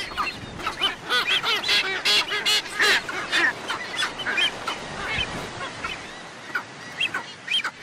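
A flock of sooty terns calling, many short, nasal, honking calls overlapping, busiest in the first three seconds and thinning out after that.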